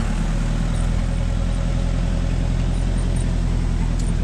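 Vehicle engine running steadily with a low, even hum.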